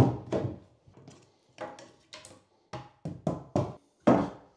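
Irregular series of sharp knocks and thuds, about ten in a few seconds, as things are handled and set down on a floor; the loudest comes right at the start and another about four seconds in.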